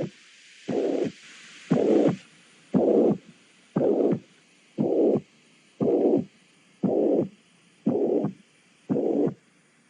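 Recorded heart auscultation of mitral valve insufficiency from degenerative mitral valve disease: a heart murmur sounds about once a second, each time lasting under half a second, over a faint steady hiss.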